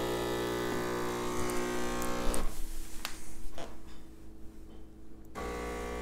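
DeLonghi Dedica espresso machine's vibratory pump buzzing as it pulls a shot of espresso. The buzz stops about two and a half seconds in, with a few light clicks, and starts again with a deeper hum near the end.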